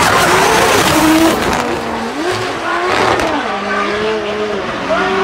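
Two drift cars in a tandem run: engines revving up and falling back over tyre squeal and scrubbing, loudest in the first second and a half.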